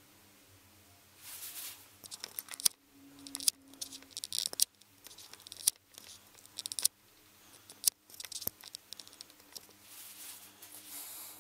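Crinkling and rustling handling noise, with several sharp clicks scattered through it, over a faint steady hum.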